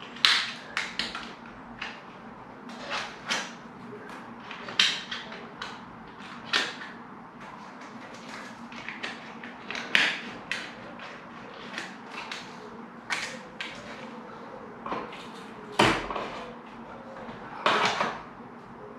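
Irregular clicks and knocks of plastic glazing packers and a UPVC window frame being handled and fitted, many short strikes, with a heavier knock near the end.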